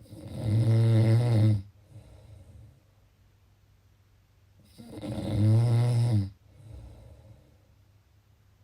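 A person snoring: two loud snores, each about a second and a half long and about five seconds apart. Each has a steady pitch and is followed by a fainter breath out.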